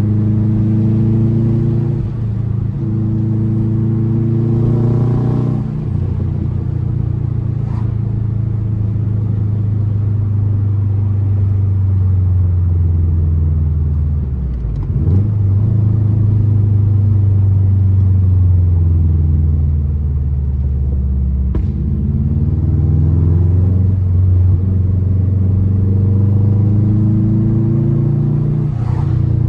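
2004 Subaru WRX's turbocharged EJ flat-four rumbling through an Invidia aftermarket exhaust under way. The engine pitch climbs for about five seconds, then drops suddenly at a gear change, dips again about halfway through, and climbs once more near the end.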